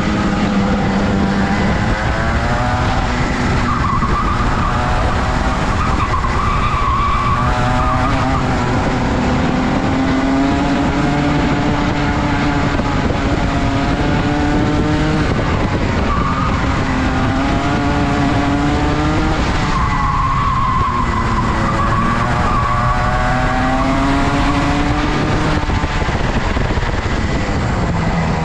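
Rotax kart's two-stroke engine running hard, its pitch climbing and dropping back several times as it accelerates and lifts off.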